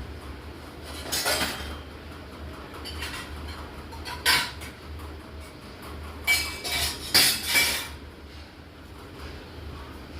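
Dishes and cutlery clinking and clattering as they are handled, in short bursts: about a second in, once near four seconds, and several between six and eight seconds, over a low steady hum.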